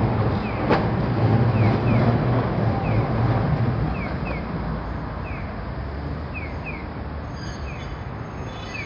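Streetcar running through a road intersection and moving away, its low rumble fading after about four seconds. There is a sharp knock about a second in. Short chirps repeat in pairs throughout.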